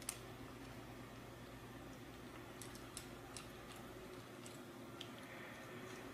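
Faint clicks and taps of acrylic robot-arm panels and a small servo being handled and fitted together, with one sharper click at the start and a few light ones around the middle, over a low steady hum.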